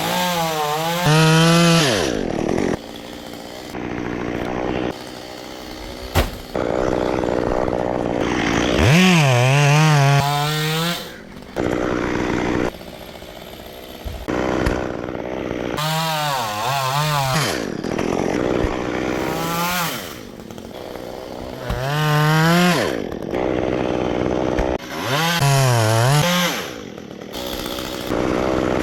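Chainsaw cutting a coconut palm trunk, its engine revving up and falling back again and again, with one sharp knock about six seconds in.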